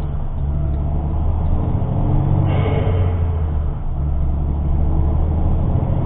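Truck engine running steadily as it drives, heard from inside the cab, with short breaks in the engine note about a quarter second in and again past the middle. A brief hiss comes a couple of seconds in.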